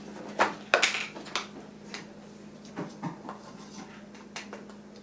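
Light clicks and taps of a measuring spoon against containers and a bowl while baking powder and cinnamon are measured out. A few sharper clicks come in the first second and a half, then softer scattered ticks.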